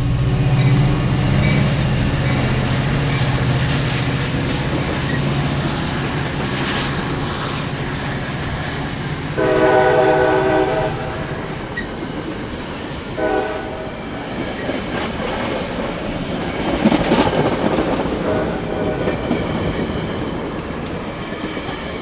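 A Metra diesel commuter train passing close by: the locomotive's engine drones as it goes past, then the bilevel coaches roll by with wheel noise on the rails. A train horn sounds for about two seconds roughly ten seconds in, with a brief second toot a few seconds later.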